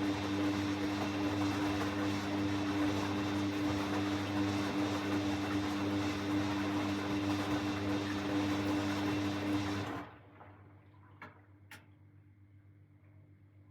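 Hoover washing machine running in its final rinse: a steady motor hum that stops suddenly about ten seconds in, followed by two light clicks.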